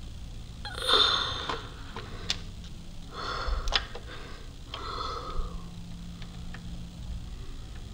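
A person's breathy gasps, three of them a couple of seconds apart, as the dying breaths of a toy character, with a few sharp clicks in between.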